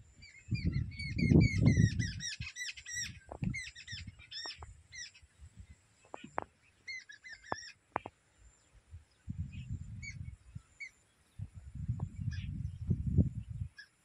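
Small birds chirping in quick twittering runs for the first few seconds and again briefly later, with only scattered chirps after that. Gusts of wind rumble on the microphone in loud low bursts near the start and again in the second half.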